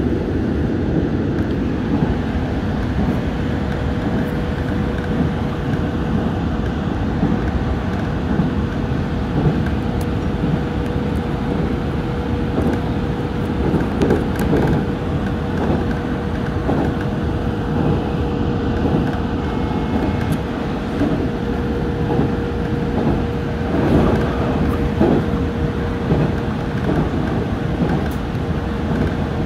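JR Central 313-series electric train running, heard inside its front motor car: steady wheel-on-rail running noise with a constant hum, and a few louder clatters of wheels over rail joints or points around the middle and near the end.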